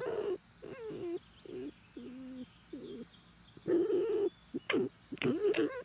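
Pet red fox making a run of short, whiny cooing calls that waver up and down in pitch, two of them longer, about two and four seconds in.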